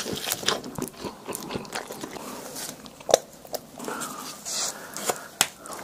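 Close-miked eating of pepperoni pizza: biting and chewing with wet mouth sounds and sharp crunchy clicks, the loudest about three seconds in.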